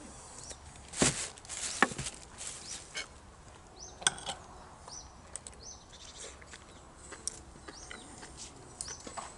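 Crusty bread crackling as it is torn by hand, loudest about a second in, then light clinks and scrapes of a spoon in a terracotta dish while eating. Short falling bird chirps repeat throughout.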